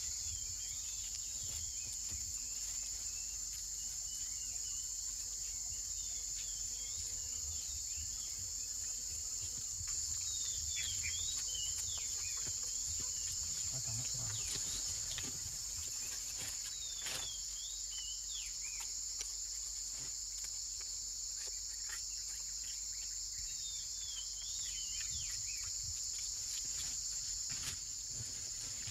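Steady high-pitched chorus of tropical forest insects, a dense unbroken buzz, with short falling chirps now and then.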